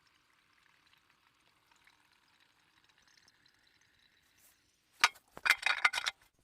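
A faint hiss, then a short, loud burst of liquid pouring about five seconds in.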